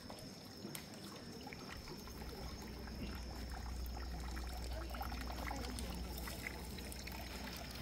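Water trickling and pouring steadily from a bamboo spout into a stone shrine water basin.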